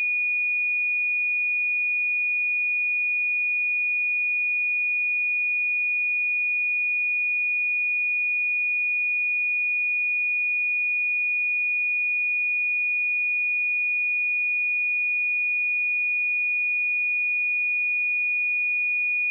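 A pure 2455 Hz sine-wave test tone, one steady high-pitched pitch held without change.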